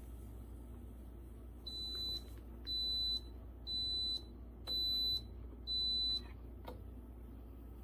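Five high-pitched electronic beeps, each about half a second long and about one a second apart, from the CHULUX Slim espresso machine's beeper, over a steady low hum.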